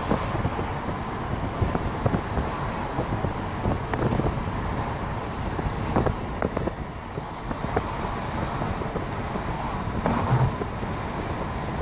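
Wind buffeting the microphone over a steady road rumble from a moving vehicle, with scattered short knocks and rattles throughout.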